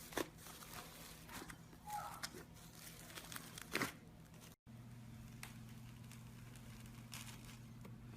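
Close crackling and clicking of a craft material being squeezed or handled. A sudden cut a little past halfway gives way to a steady low hum with a few faint clicks.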